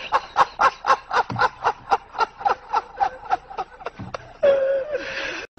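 Long run of rapid, even laughter, about five bursts a second, ending in one drawn-out held vocal note about four and a half seconds in.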